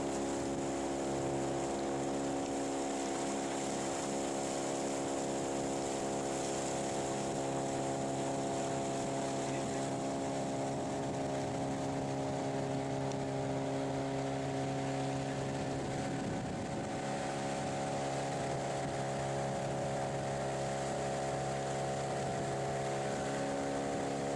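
Boat motor running at a steady, unchanging pitch: a constant hum.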